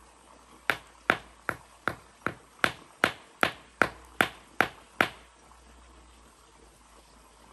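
A quick series of about a dozen sharp, evenly spaced knocks, two to three a second, as something is struck repeatedly against a hard surface on the ground; they stop about five seconds in.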